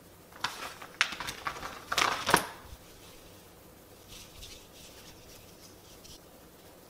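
Dog costume fabric rustling and crinkling as it is handled and pulled onto a small dog: a quick flurry of sharp rustles in the first few seconds, the loudest a little over two seconds in, then fainter rustling a few seconds later.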